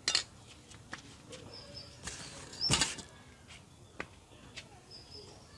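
Small birds chirping now and then, with two short noisy bursts, the louder one near the end of the third second, and a few sharp clicks.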